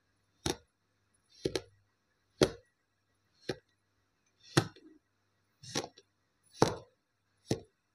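Kitchen knife chopping down through kinetic sand, eight short sharp knocks about a second apart.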